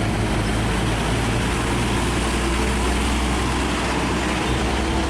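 A machine running steadily: a constant low hum under an even hiss.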